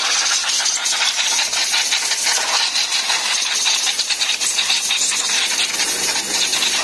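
Compressed-air blow gun hissing steadily, blasting dust and dirt off a scooter's engine and rear-wheel area.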